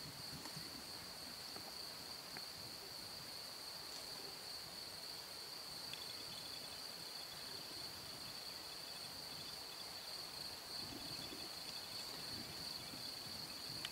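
Crickets calling steadily in the evening countryside, a faint continuous high trill. A second, fainter pulsing insect call joins about six seconds in.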